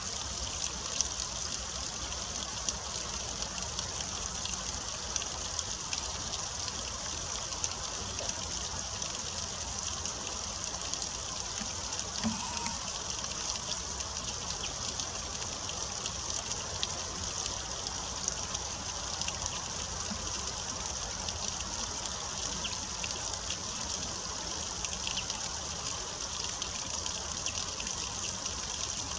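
Water trickling and splashing steadily down a small rock cascade, with many small drip ticks scattered through it.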